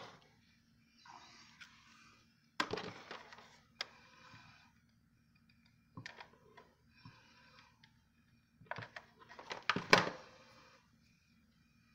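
Hands working with a hot glue gun and wooden Jenga blocks on a cutting mat: scattered clicks and knocks with some rustling, a cluster of them near the end with the sharpest knock there.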